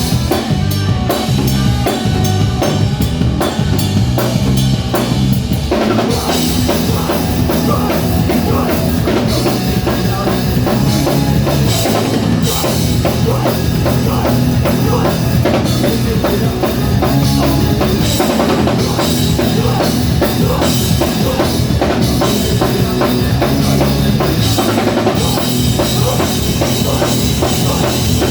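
Live rock band playing an instrumental passage, drum kit prominent with fast bass-drum and snare strokes under guitar and bass; the sound thickens about six seconds in as more instruments come in.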